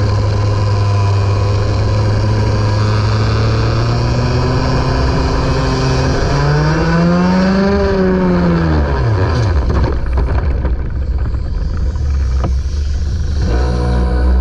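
Racing go-kart engine running hard with a steady note, revving up about six seconds in and dropping back by nine, then running at a lower pitch.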